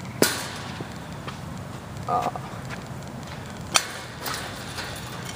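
Sharp crack as a pitched ball meets a plastic bat, followed about two seconds in by a brief vocal sound and, near four seconds, a second sharp knock.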